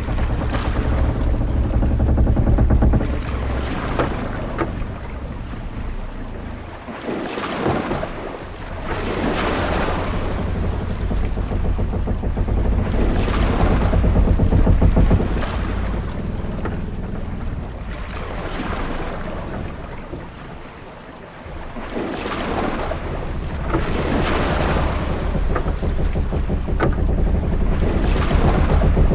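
Ship-at-sea ambience: waves washing in repeated swells a few seconds apart over a steady low rumble of wind.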